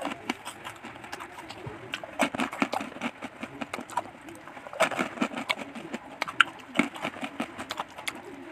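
Crisp, irregular crunches of savory onion crackers being bitten and chewed close to the microphone, in clusters, with light clicks as crackers are picked from a plastic plate.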